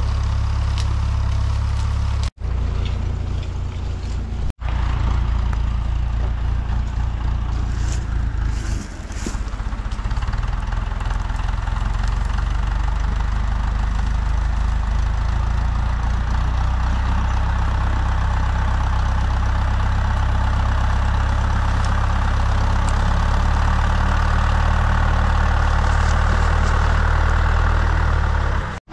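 Tractor diesel engine running steadily with a deep drone, broken by two sudden very short gaps in the first five seconds and a brief dip in its note about nine seconds in.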